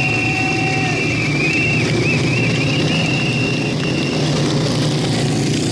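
Pacer motorcycle engines running steadily in a motor-paced cycling race, a continuous engine drone with a thin wavering whine over it.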